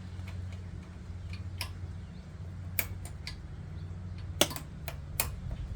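Scattered light clicks and ticks, several in quick succession near the end, from hand work on an e-bike's shifter and cable, over a steady low hum.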